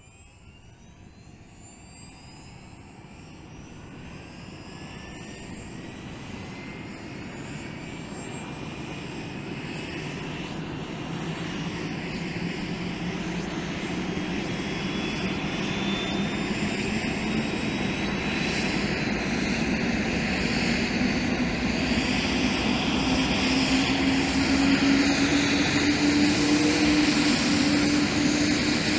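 Helicopter engine and rotor running, growing steadily louder, with a whine that slowly rises in pitch.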